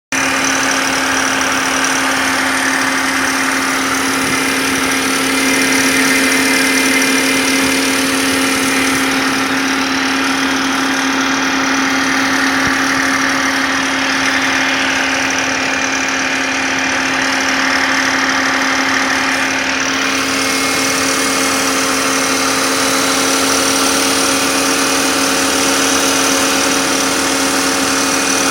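BMW M52B28 2.8-litre inline-six engine running steadily with a rattle, which the owner hears at about 1500 rpm and traces to a faulty timing chain guide rail.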